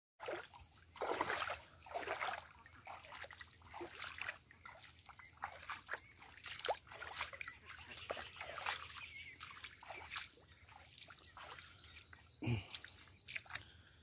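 Faint, uneven footsteps and rustling through wet grass and brush along a muddy paddy bund, with small splashes of water. A few quick runs of short, high falling chirps come through near the start and again near the end, and a soft low thump comes near the end.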